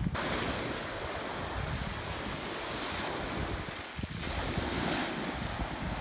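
Sea waves washing onto a beach, a steady rushing wash that eases briefly about four seconds in, with wind buffeting the microphone.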